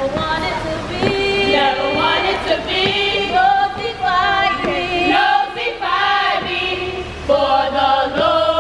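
A group of women singing a sorority chant together in unison, in long held phrases with short breaks between them.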